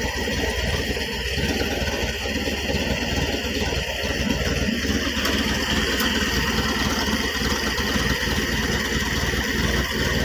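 Toyota 4K four-cylinder engine idling steadily with the air cleaner off its carburetor. The carburetor has a freshly replaced fuel jet, which cured the engine's low power and misfiring.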